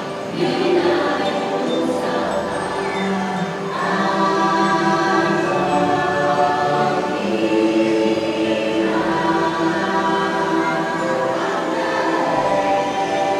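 The ride's choral soundtrack: a choir singing long, held chords that change every few seconds, playing without a break.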